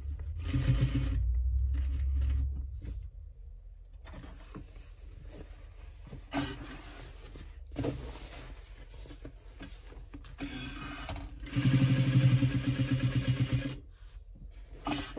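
Sewing machine stitching a fabric bag handle in two short runs of fast, even stitching that start and stop, with fabric being shifted and a few light knocks in between.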